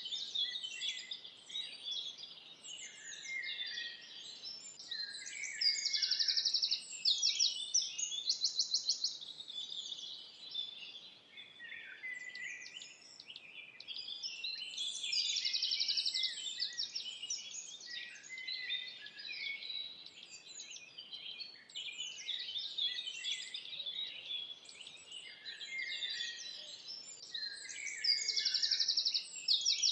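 Forest songbirds singing in a dense chorus, several birds overlapping with chirps and whistles, and a fast high trill coming in several times.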